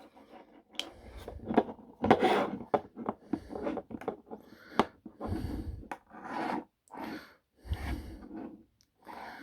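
Plastic transforming action figure being handled and posed: scattered clicks of its joints and parts, short plastic rubs and scrapes, and a couple of low thumps as it is set down or bumped.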